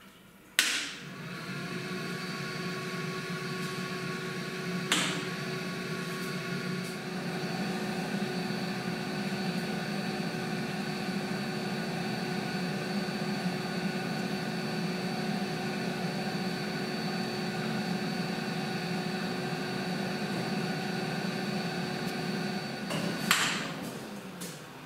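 Small vat milk pasteurizer's machinery switched on with a click and running with a steady hum and whine during pasteurization. It stops with another click near the end.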